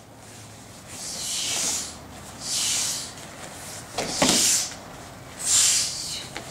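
Group of barefoot children performing a martial-arts form in unison: a short, sharp hissing swish with each move, about every second and a half, and one sharper thud about four seconds in.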